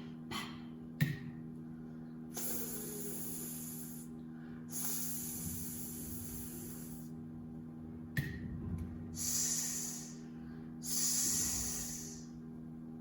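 A woman's voice making long hissing consonant sounds, four held hisses of one to two seconds each, the way letter sounds such as 's' are said in a phonics drill. A short click comes about a second in and again past the middle, over a faint steady hum.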